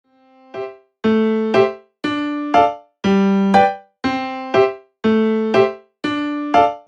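Background music on an electric-piano-like keyboard: a chord struck and held, then a second chord struck just before it cuts off, repeating about once a second with brief silent gaps between.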